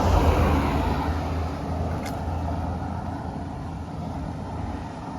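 A motor vehicle driving past close by, loudest at the start with a low engine hum and tyre noise that slowly fades as it goes away.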